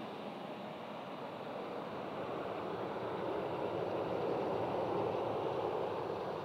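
Jet noise from a C-17 Globemaster's four Pratt & Whitney F117 turbofan engines on approach: a steady rushing sound that grows louder about four seconds in as the aircraft closes in.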